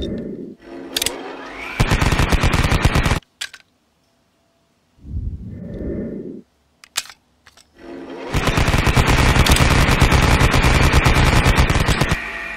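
Dubbed-in sound effect of rapid machine-gun fire, in a short burst about two seconds in and a longer burst from about eight seconds to near the end. Short low sounds come before each burst.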